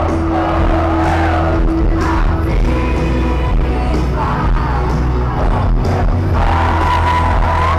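Live Christian worship music played loud over a concert sound system, with a steady heavy bass and singing over it, including a long held note near the end.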